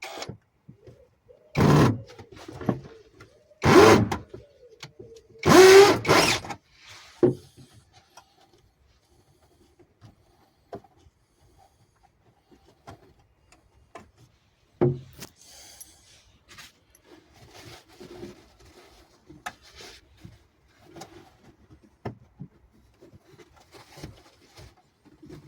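A power drill-driver run in three short bursts, the last the longest, likely backing out screws to remove a transformer, followed by quieter clicks and knocks of tools and parts being handled.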